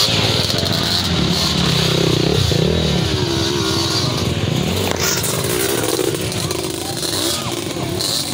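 Dirt bike engines revving unevenly, rising and falling in pitch, as the bikes climb a steep dirt trail.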